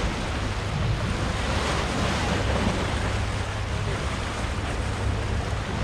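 Sea surf washing against a rocky shore, a steady rush of waves, with wind buffeting the microphone and adding a low rumble.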